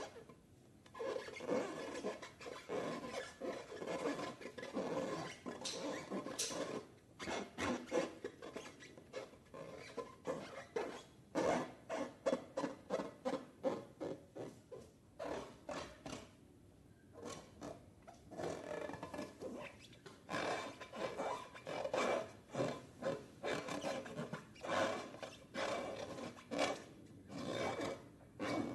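Slime being squeezed and worked by hand: a long run of short rubbing, crackling strokes, coming in quick clusters of about two a second in places, with brief pauses.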